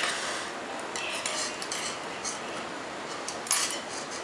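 Thin metal knitting needles clicking and scraping against each other as stitches are worked three together, with light yarn rubbing; a louder cluster of clicks comes about three and a half seconds in.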